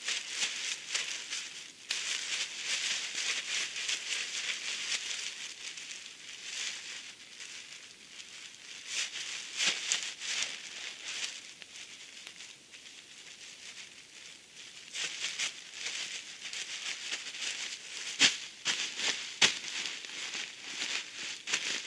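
A large plastic sack crinkling and rustling as it is gripped, twisted shut and handled. Sharper, louder crackles come near the end as it is set down on dry leaves.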